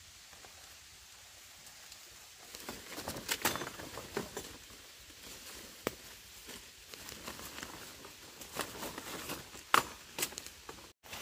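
Rustling with scattered light clicks and knocks, as of hands handling things, starting about two and a half seconds in, with two sharper knocks, one near the middle and one near the end.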